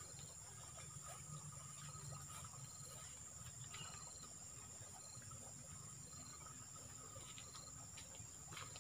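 Insects droning, a steady high-pitched shrill with short high chirps repeating every second or so. A few faint footsteps on the dirt path come in near the end.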